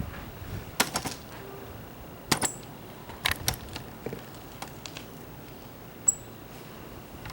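Irregular sharp clicks and light taps in small clusters. Two of them ring briefly with a high metallic tone.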